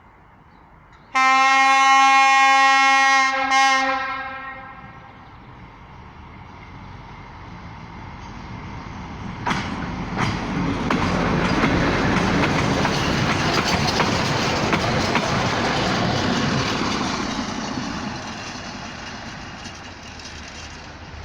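Railway track-maintenance machine sounding its horn, one long blast and then a short toot, then drawing near and passing with a rising and falling rumble and clacking of wheels on the rails.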